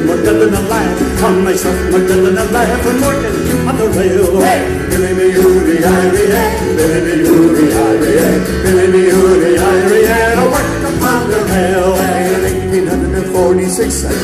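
Live acoustic folk band playing an Irish-American folk song: strummed acoustic guitars, bass and light jingling percussion keeping a steady beat, with voices singing over them.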